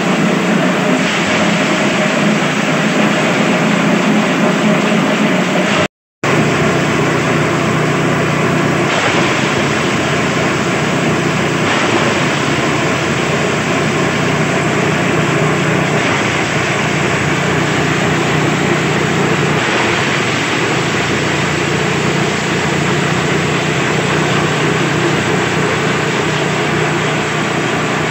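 Multi-purpose chopper machine running under load as fresh grass stalks are fed in and shredded: a loud, steady mechanical din over a low drive hum. It cuts out for a moment about six seconds in.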